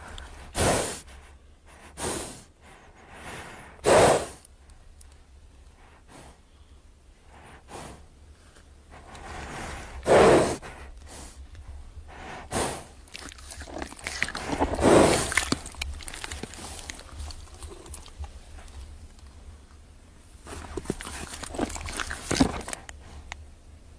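Pachycephalosaurus creature sound effects: a string of short, noisy, breathy calls with no clear pitch, about eight of them with pauses between, the longest around fifteen seconds in.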